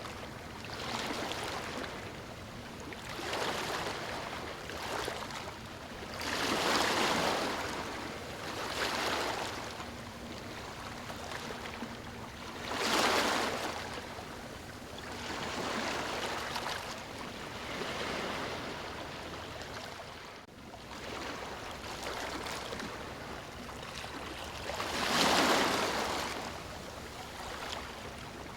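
Ocean waves breaking and washing up a beach, the surf swelling and falling back every few seconds, with a few bigger breaks among them.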